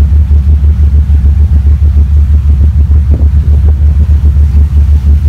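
Motor yacht's engines running steadily under way, a heavy low drone with a fast, even pulse.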